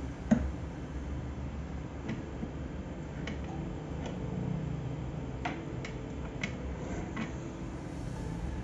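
Hot-air rework station blowing at the board with a steady low hum and hiss, with scattered light clicks, the loudest about a third of a second in.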